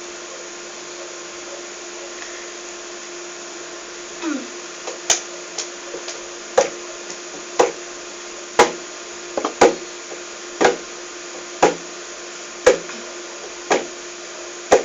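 Steady background hiss with a constant low hum, then, from about five seconds in, a regular beat of sharp knocks, about one a second, keeping time ahead of the singing.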